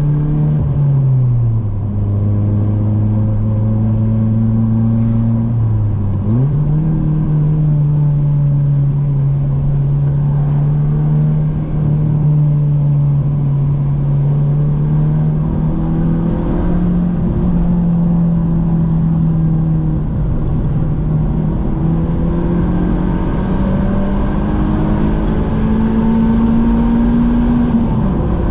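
Honda H-series four-cylinder engine pulling the car along at cruising speed. Its note drops about a second in, jumps back up around six seconds in, then holds fairly steady with slight rises and dips.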